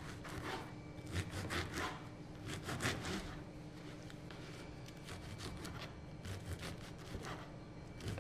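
Knife cutting hard day-old bread into cubes on a plastic cutting board: irregular short scraping strokes through the dry crust, in small clusters with brief pauses.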